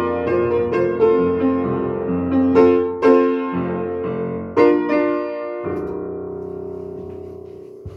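Upright piano playing the closing bars of a slow song. A series of struck chords leads to a final chord about five and a half seconds in, which is held and rings away, fading steadily.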